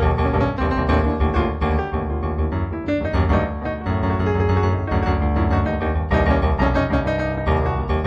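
Background solo piano music, many notes following one another over sustained low bass notes.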